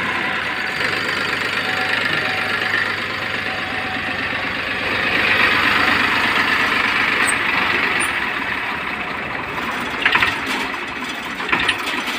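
Farmtrac 35 tractor's diesel engine idling steadily, with a few sharp clicks near the end.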